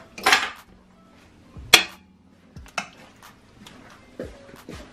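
A metal serving spoon scraping and clinking against a stainless-steel bowl and a cooking pot as chicken and potato pieces are spooned in. The sounds come as a few scattered knocks, and the sharpest, ringing clink is a little under two seconds in.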